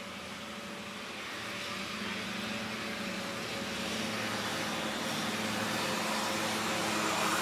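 A steady motor hum with a hiss over it, slowly growing louder.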